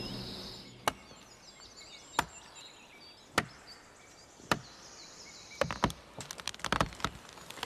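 Axe chopping into a tree trunk: four single blows a little over a second apart, then a quicker run of cracks and knocks near the end.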